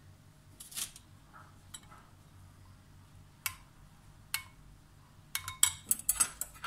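Metal spoon clinking against a porcelain bowl of syrup: a few separate light clinks, then a quick run of louder clinks near the end.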